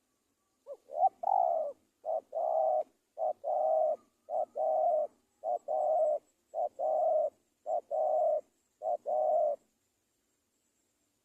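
Spotted dove cooing in a steady series: about eight two-part coos, each a short note followed by a longer one, repeated roughly once a second.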